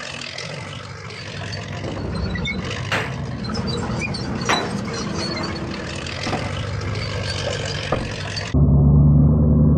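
Large Lego Technic tank rolling over and crushing a small Lego car: a steady rumbling, hissing track noise with four sharp cracks as the bricks break apart. Near the end it cuts abruptly to a louder, steady low hum of the tank's drive motors.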